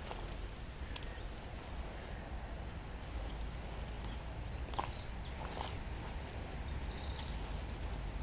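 Outdoor ambience with a steady low rumble, and a small bird singing a short run of high chirping notes about halfway through. A couple of short clicks are heard, one about a second in and one just before the birdsong.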